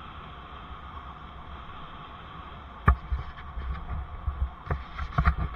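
Bicycle ride heard from a helmet-mounted camera: a steady hiss and low rumble, then about three seconds in a sharp knock followed by a run of irregular thumps and rattles as the bike rolls over rough, patched asphalt.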